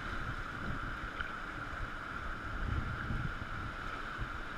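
River rapids rushing as a steady hiss, with low wind rumble on the microphone and a few dull knocks around the middle.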